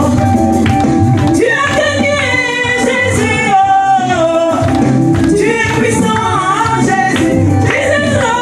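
Live gospel praise music: a woman sings lead into a microphone over a band with a steady bass line and percussion.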